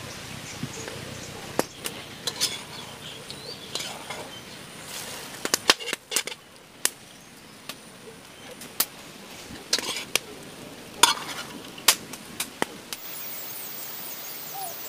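Kitchen utensils clinking and tapping against cookware: about fifteen sharp knocks at irregular intervals, a few of them ringing briefly.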